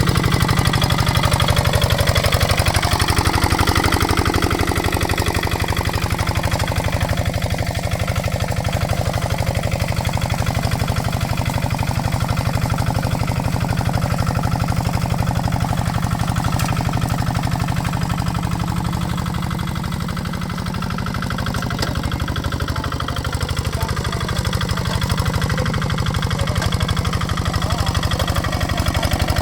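Kubota RD65 DI-1S single-cylinder diesel engine of a hand tractor running steadily, with a fast, even chugging beat that eases slightly for a moment about two-thirds of the way through.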